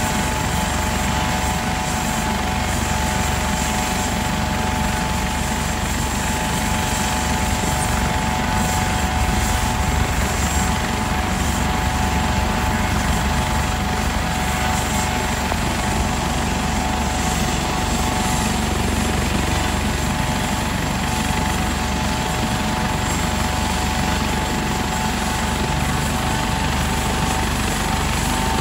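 Turbine helicopter running on the ground with its rotor turning: a steady rotor and engine noise with a constant high turbine whine over it. The whine grows a little stronger near the end.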